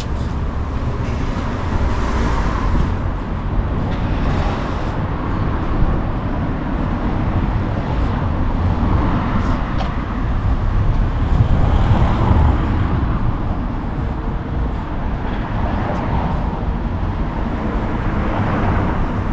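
Outdoor street ambience dominated by road traffic: a steady rumble with vehicles swelling past every few seconds.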